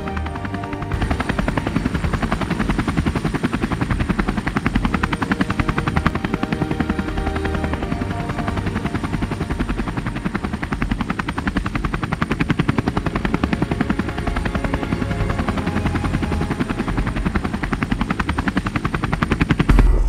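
Single-rotor helicopter flying with an underslung load on a long line, its rotor blades beating in a rapid, steady chop that gets louder about a second in.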